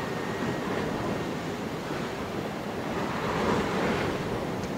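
Sea surf washing in, with wind blowing across the microphone; the surf swells louder about three and a half seconds in.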